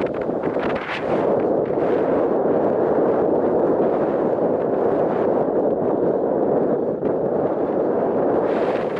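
Strong wind buffeting the microphone: a loud, steady rumbling rush with no breaks.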